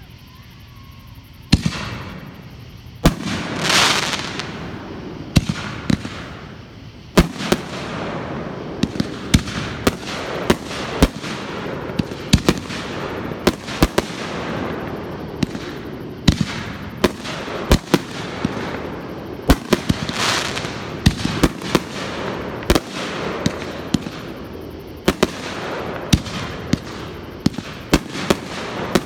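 A fireworks display going off. After a quiet first second and a half comes a run of sharp bangs, a few a second at times, with a steady crackling hiss between them.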